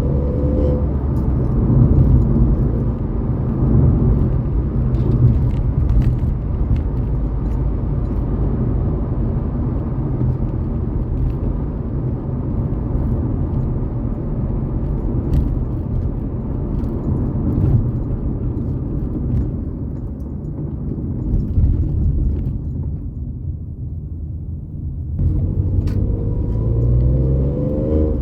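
Ford Fiesta EcoBoost engine and exhaust running steadily with a low rumble. The revs rise just after the start, ease off about two-thirds of the way through, then pick up and climb again near the end.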